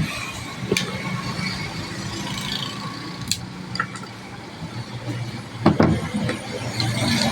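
Scattered metallic clicks and knocks of hand tools and parts while an angle grinder is worked on during an armature change, with a cluster of sharper knocks near the end, over a steady low hum.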